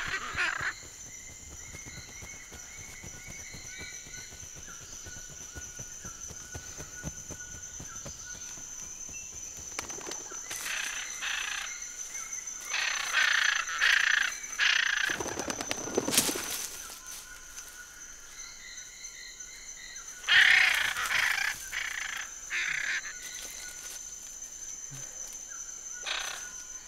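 Tropical forest ambience: a steady high insect drone, with faint distant whistles in the first few seconds. Several loud, hoarse calls come in clusters about a third of the way in, the loudest about three quarters of the way in, and a few shorter ones near the end.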